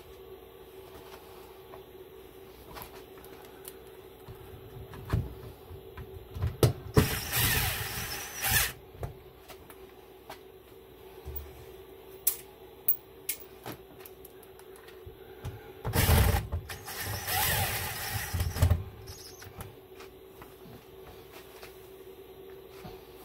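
Cordless drill driving screws into sheet-metal ductwork, in two runs of a couple of seconds each, with scattered clicks and knocks between and a faint steady hum throughout.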